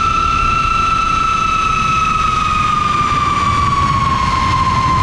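Floss 3 racing quadcopter's 1622 kV brushless motors and 6-inch three-blade propellers whining in flight. It is one steady high whine over a low rumbling noise, and its pitch sinks slowly about halfway through.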